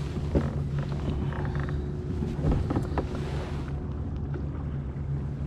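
Steady low hum of a boat motor running, with a few light knocks and clicks of gear against the kayak, the loudest a little past halfway.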